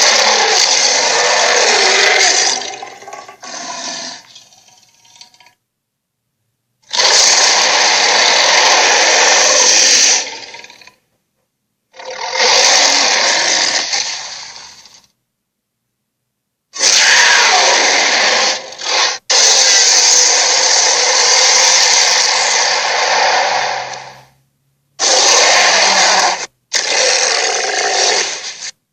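Sea-serpent sound effects from an animated series: a string of about seven harsh, rasping bursts, each one to five seconds long, separated by short silences.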